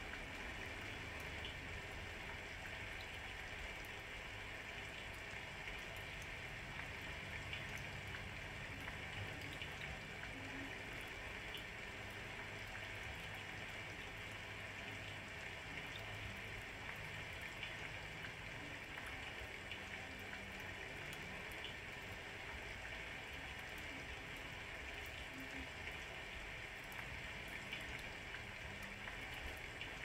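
Steady rain falling, an even hiss with scattered faint ticks of individual drops.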